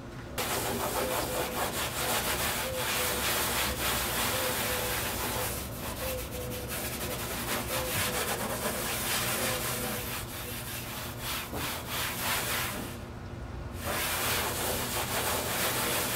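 3M abrasive stripping pads rubbed back and forth by hand over the primed aluminum hull of a jon boat, scuffing the coating so the top coat will stick: a steady scratchy scrubbing in uneven strokes, which stops briefly about thirteen seconds in and then resumes.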